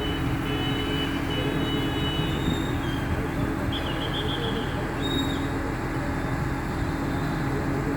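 A large engine running steadily, a continuous low drone with a steady hum and no change in pace.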